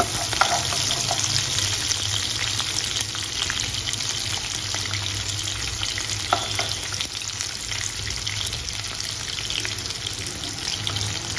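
Chopped onions sizzling in hot oil in a nonstick kadai with chana and urad dal, stirred with a wooden spatula: a steady frying hiss with scattered small crackles.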